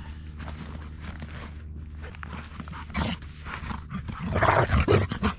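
A dog making a short, loud outburst of rough barks or growls about four seconds in, over a low steady background.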